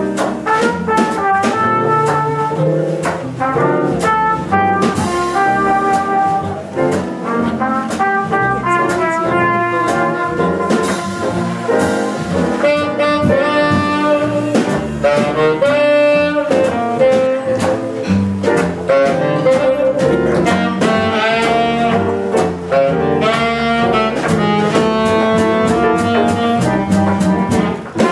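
Live jazz combo playing: trumpet and saxophone lines over piano, upright bass and drum kit.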